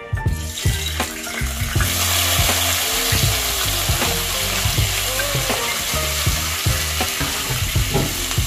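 Chopped seasoning vegetables (onion, tomato, sweet pepper, thyme) hitting hot oil in a pot and sizzling as they begin to sauté. The sizzle grows loud about two seconds in and then holds steady.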